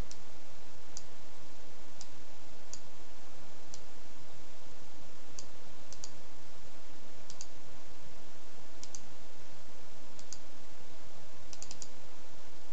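Computer mouse buttons clicking about once a second, sometimes in pairs, with a quick run of clicks near the end, over a steady hiss.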